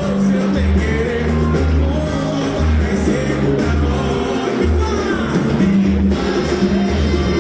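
A band playing a song, with a rhythmic bass line and a singing voice.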